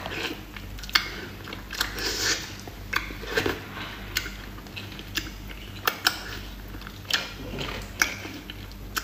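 Close mouth sounds of eating braised eel: wet smacks, clicks and chewing as the flesh is bitten and stripped off the backbone, coming at irregular intervals about once or twice a second.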